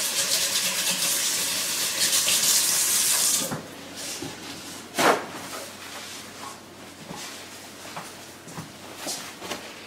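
Kitchen tap running full as hands are rinsed under it, shut off suddenly about three and a half seconds in. After that, quieter handling noises with a few soft knocks, the clearest about five seconds in.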